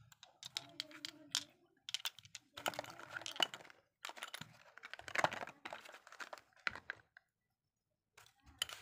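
Makeup products and their packaging being handled and shuffled: small plastic and glass items clicking and knocking together and packaging crinkling, in irregular bursts, with a short lull near the end.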